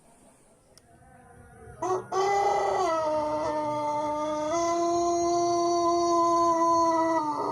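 Ayam pelung rooster crowing: one long, drawn-out crow that starts about two seconds in, rises, then holds a steady pitch with a step up partway through.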